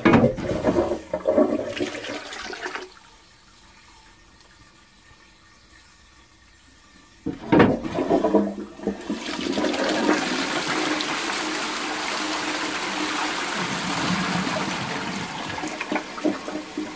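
Bell-type high-level cistern (STOM Cardiff 146) being flushed by its pull chain. A metal clank and a few seconds of splashing come first. A second clank follows about seven seconds in, then the siphon catches and water rushes steadily down the flushpipe into the pan, easing off near the end. It is the cistern's first flush at its original water level, which is set too low.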